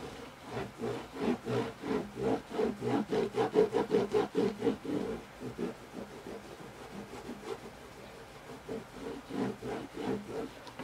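A cloth rubbed briskly back and forth over the unstrung fretboard of a Yamaha FG-251 acoustic guitar, several strokes a second. The rubbing runs for about five seconds, eases off, then picks up again near the end.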